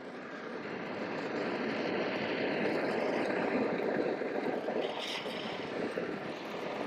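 Oxy-acetylene torch flame hissing steadily, growing louder over the first couple of seconds. The torch is sooting the vise's acme-thread screw so that the braze will not stick to it.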